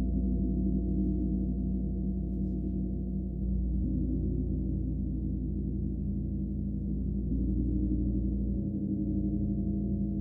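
A gong resonating with a sustained low hum, its overlapping tones strongest in the low range and swelling slightly as it is played on.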